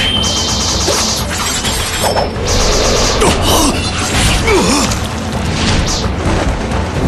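Dramatic soundtrack music layered with sword-fight sound effects: blade clashes, whooshes and heavy booming impacts coming one after another.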